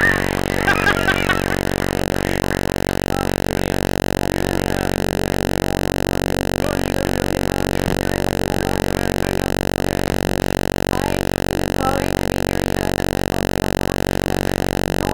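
A steady, unchanging buzzing drone made of many even tones, with a few faint clicks in the first second and a half.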